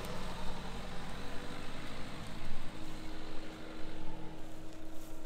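2018 Dacia Duster's 1.5 Blue dCi turbodiesel engine running as the SUV drives away along a dirt track, getting quieter towards the end.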